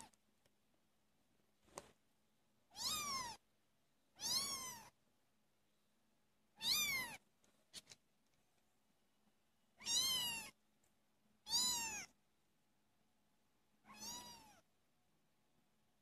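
Kitten about four weeks old meowing six times: short, high-pitched calls that each rise and fall in pitch, a second or two apart.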